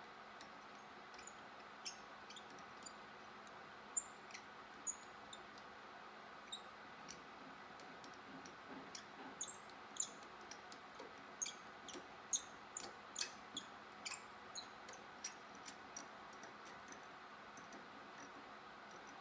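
Irregular light metallic clicks and ticks from small silver parts being handled in a workshop. The clicks come thicker and faster about halfway through, over a faint steady hum.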